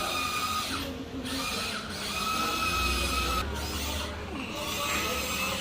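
Electric motors of a Huina 1594 RC excavator whining as it is driven, cutting out and starting again several times as the controls are worked.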